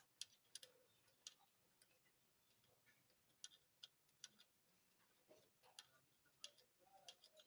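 Faint, irregular light clicks and ticks of small metal parts being handled and fitted while a steering column assembly is put back together.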